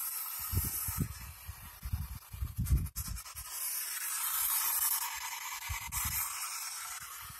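White-noise static from a P-SB7 spirit box sweeping through radio frequencies, a steady hiss that shifts in strength every second or two. Irregular low thumps run under it as the camera is carried along.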